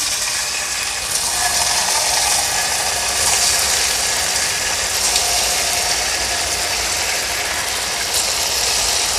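Small spoonfuls of idli batter deep-frying in hot oil: a steady, dense sizzle and crackle of bubbling oil.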